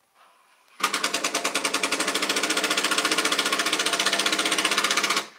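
A small motorised device running with a loud, rapid, even mechanical rattle over a steady hum. It starts suddenly about a second in and cuts off just before the end.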